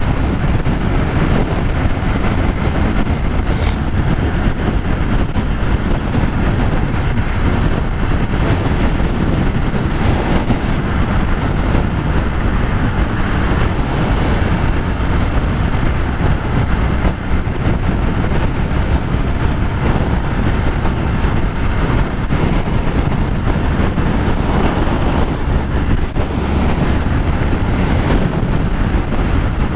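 Heavy wind rushing over the microphone while a Yamaha XTZ Crosser motorcycle travels at highway speed, with its single-cylinder engine and road noise running steadily underneath. The low rumble comes from strong crosswind gusts.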